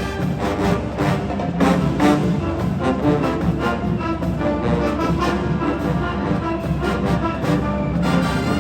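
Marching band playing at full volume: brass horns sustaining a tune over steady drum hits.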